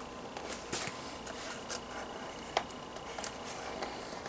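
Hands working at stiff product packaging: a few scattered sharp clicks and light scrapes of plastic and cardboard as the box resists opening.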